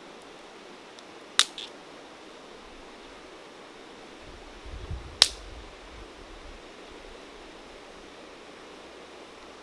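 Small wood fire being fed with sticks: two sharp cracks of wood, about a second and a half in and again about five seconds in, over a steady hiss.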